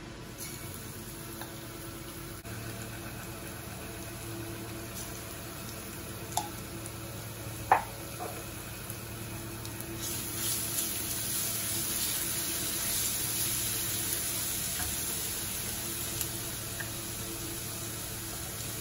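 Minced garlic sizzling in hot oil in a ceramic frying pan as it is sautéed, the sizzle growing louder about halfway through. Two sharp knocks come a little before that.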